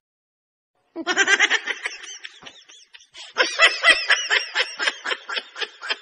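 A person laughing hard in a rapid run of 'ha-ha-ha' bursts, starting about a second in, with a brief lull in the middle.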